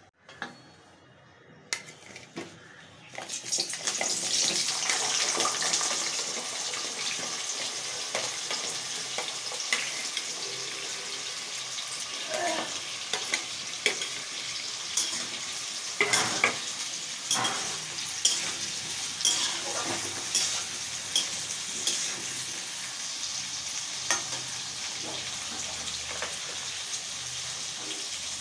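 Food hits hot oil in an iron kadhai about three seconds in and starts sizzling loudly; the frying goes on steadily. Over it, a steel spatula scrapes and clinks against the pan again and again as cubed potatoes are stirred.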